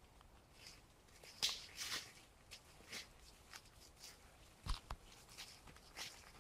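Footsteps through leaf litter and undergrowth: irregular faint crunches and rustles, with two dull thumps close together about three-quarters of the way through.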